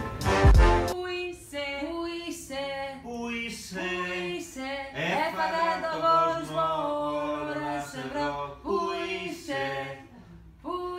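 Voices singing a tune without instruments, holding and sliding between notes, after a second of music with a beat at the start.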